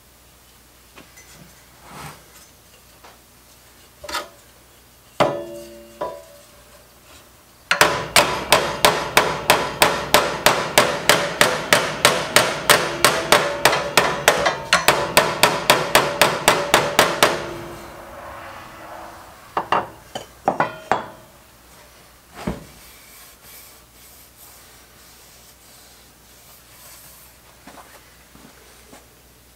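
Hammer blows on the metal tabs under a vintage stool's steel seat pan: a few single strikes, then a rapid, even run of blows at about four a second for nearly ten seconds with a metallic ring, then a few more scattered taps.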